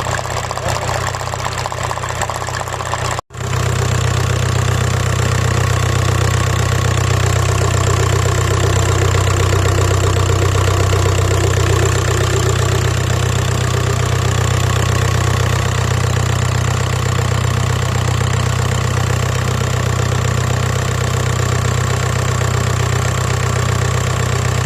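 Car engine idling roughly and shaking, misfiring on cylinder 1 (codes P0301 and P1666, an electrical fault). The sound cuts out for a moment about three seconds in and comes back louder.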